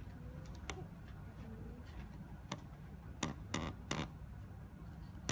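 Scattered short clicks and crinkles of hands and markers on a large sheet of chart paper on a table, about six of them and the loudest ones a little past three seconds in, over a steady low room hum.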